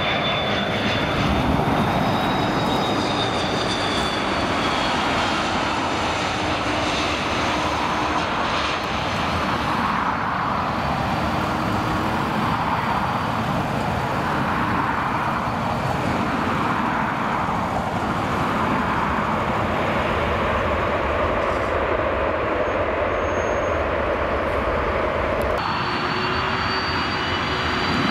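Airbus A330 jet engines running loud and steady: a rushing noise with a high-pitched whine over it. Near the end the sound changes abruptly to another jet's engines with a higher whine.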